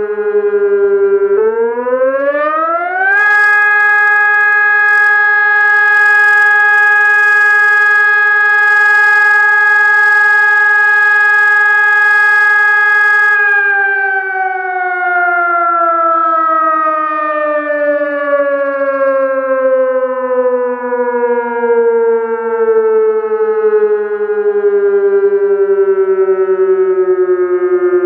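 Sonnenburg 600-watt electronic civil-defence siren sounding through its horn loudspeakers. Its loud tone dips slightly, rises to a steady high pitch about two seconds in, and holds there for about ten seconds. It then glides slowly down in pitch for the rest of the time, like a motor siren winding down.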